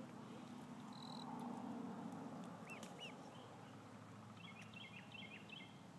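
Duckling peeping: a few short, separate peeps around the middle, then a quick run of chirps near the end, faint over a low steady background hum.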